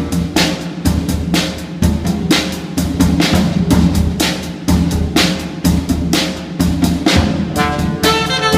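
Music: a drum-kit break, with steady, rapid bass drum and snare hits over a bass line; horns come back in just before the end.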